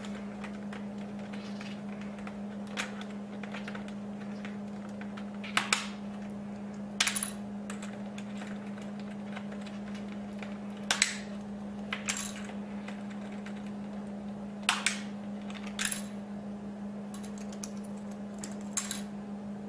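Plastic computer keyboard keys clicking and clacking as an eclectus parrot pecks and pries at them with its beak: a run of small ticks, with a sharper click every few seconds. A steady low electrical hum runs underneath.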